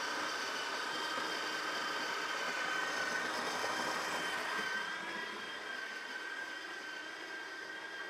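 Built-in conical burr grinder of a Breville Barista Touch Impress espresso machine grinding coffee beans into the portafilter for a single shot: a steady motor whine that drops slightly in level about five seconds in.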